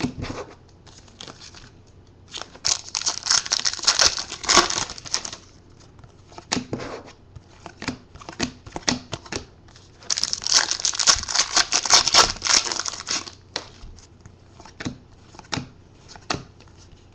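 Football trading cards and a foil pack wrapper being handled: two stretches of crinkling and rustling, beginning about two seconds and about ten seconds in, with light clicks of cards between them.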